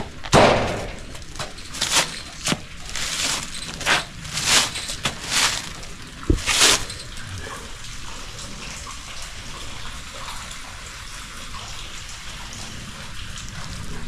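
Footsteps and rustling in dry fallen leaves on a steel grate, about eight irregular crunches over the first seven seconds, then a softer steady hiss.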